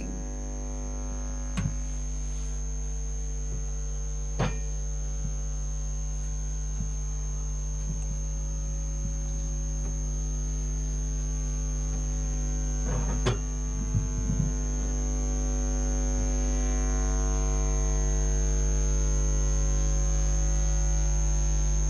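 Steady electrical mains hum with many harmonics and a thin high whine, broken by a few faint clicks. It grows slightly louder toward the end.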